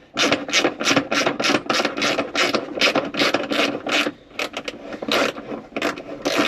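Small hand ratchet from the Jeep's factory tool kit, driving a T40 Torx bit on a top-lock bolt: quick repeated ratcheting clicks at about four strokes a second, pausing briefly twice.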